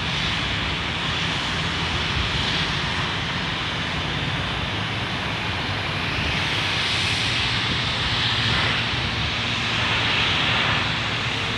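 Diesel engine of a crawler crane running steadily under load as it hoists a mini excavator, a constant low hum with a broad hiss over it that swells slightly after about six seconds and again near the end.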